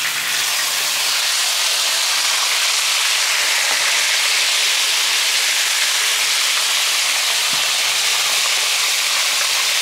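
Seasoned shrimp frying in hot oil, a steady loud sizzle.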